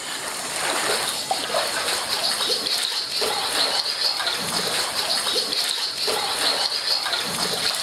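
Kayak paddle strokes splashing in the water, with water washing and sloshing along the kayak's hull as it is paddled steadily.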